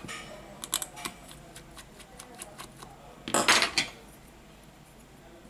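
Light metallic clicks and clinks of steel tweezers and tiny screws being handled on a smartphone's metal frame. About three and a half seconds in comes a louder scrape lasting about half a second.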